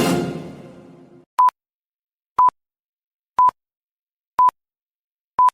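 Orchestral theme music fades out, then five short, evenly spaced pips of one high pitch sound about a second apart. These are radio time-signal pips that lead into the top-of-the-hour news.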